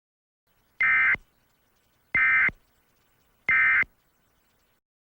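Emergency Alert System end-of-message signal: three short, buzzy bursts of SAME digital data tones, just over a second apart, marking the end of the alert message.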